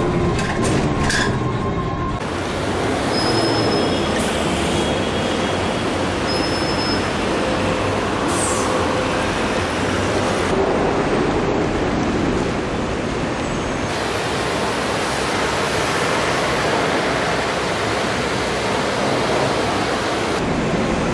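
Steady rumble and hiss of city traffic and vehicle noise, the background changing abruptly a few times.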